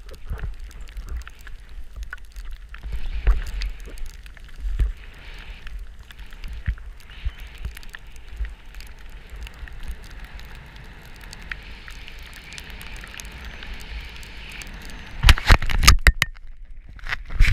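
Skis sliding and scraping over snow, with wind buffeting the camera's microphone. Near the end, a burst of loud knocks and rubbing as the camera is handled.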